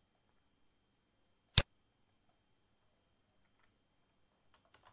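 A single sharp click from a computer keyboard or mouse about a second and a half in, with faint keyboard taps near the end as typing starts again; otherwise very quiet.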